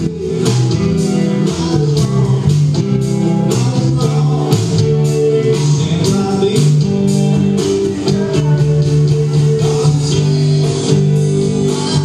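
A live band playing: electric guitar over bass and sustained chords, with drums keeping a steady beat, heard through a camcorder's built-in microphone.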